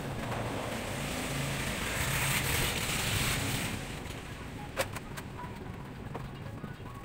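A motor vehicle passing by: its noise swells to a peak and fades away over about four seconds. A single sharp click comes near the five-second mark.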